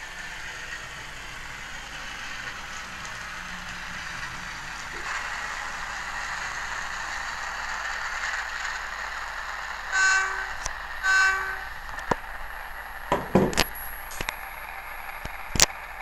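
Sound decoder in a Dapol N gauge Class 56 model diesel locomotive playing its engine running sound through the model's small speaker, growing slightly louder about five seconds in. Two short horn blasts of the same tone sound about a second apart, around ten seconds in. A run of sharp clicks and knocks follows near the end.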